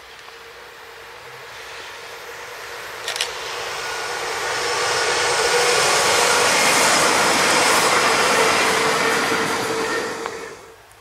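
A Siemens Desiro ML electric multiple unit (SNCB AM 08) approaching and passing at speed, its rushing wheel and air noise building for about five seconds and holding, then falling away sharply near the end. A brief pair of clicks about three seconds in.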